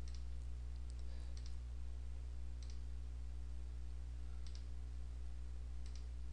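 Computer mouse clicking a handful of times at irregular intervals, over a steady low electrical hum.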